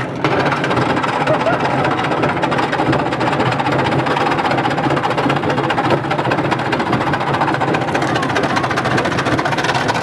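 Front-loading washing machine on fire: a loud, steady rushing noise with dense crackling that sets in abruptly right at the start.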